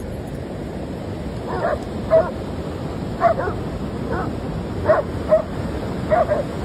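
Dog barking: about seven short barks, starting about a second and a half in, over the steady rush of ocean surf.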